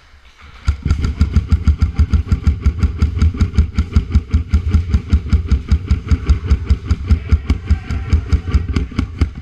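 Airsoft rifle firing one long full-auto burst, a steady rapid clatter of about eight shots a second that starts suddenly about a second in and cuts off suddenly near the end.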